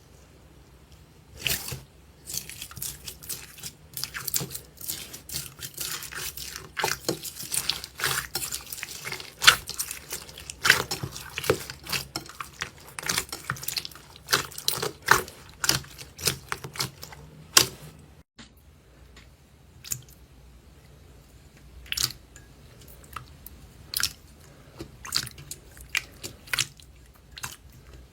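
Slime being squeezed, stretched and poked by hand, making a dense run of sticky clicks and wet pops. After a sudden break about two thirds of the way through, the pops come fewer and further apart.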